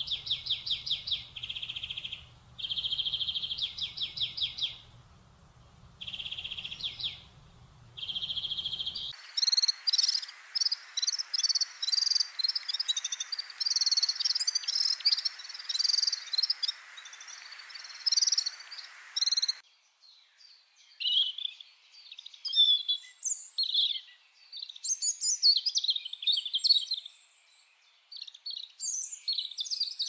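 Wild birds calling and singing. First comes a trilling call repeated in bouts of one to two seconds with short gaps. About nine seconds in, a busy chorus of many overlapping chirps takes over. About twenty seconds in, that gives way to varied, quicker song phrases.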